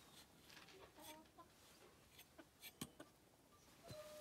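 Near silence with faint, sparse chicken clucks and a few soft clicks.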